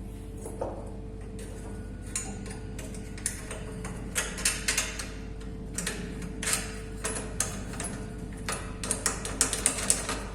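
An electric motor hums steadily, with irregular sharp clicks and taps over it that come thicker near the end.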